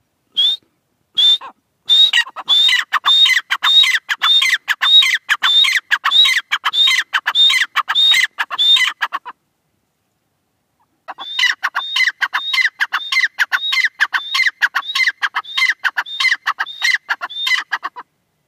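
Gray francolin calling: a fast series of sharp, high notes, about three a second, in two bouts with a pause of about two seconds between.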